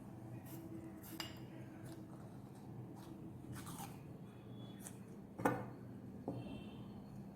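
A few light clicks and taps from handling small seeds and micropore tape, the loudest a little past halfway, over a steady low hum.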